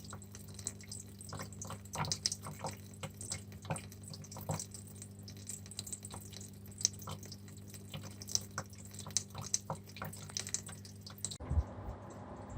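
An evaporative air cooler running, with water from its cooling pad falling straight into the reservoir tank: an irregular patter of drips and splashes over a steady low hum. This splashing is the common noise fault of cheap evaporative coolers, and it gets louder the lower the water in the tank.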